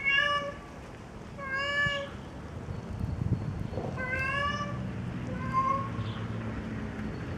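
A tomcat meowing four times, each a drawn-out call a little over half a second long, the last one fainter: a male calling for a mate. A low steady rumble sits underneath from about halfway through.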